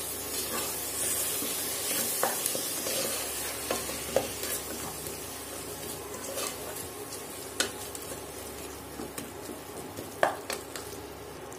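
Wooden spatula stirring and scraping a sizzling onion, tomato and spice masala with fresh curd in a pressure cooker, over a steady frying sizzle, with occasional light knocks against the pot.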